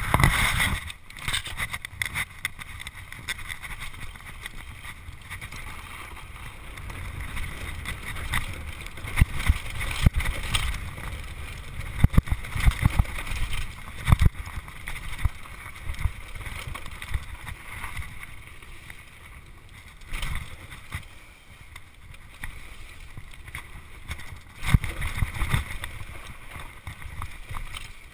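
Mountain bike descending a dirt trail, heard from a camera riding on the bike or rider: wind buffeting the microphone and tyres rolling over dirt, with frequent rattles and knocks from the bike as it hits bumps, busiest near the middle and again near the end.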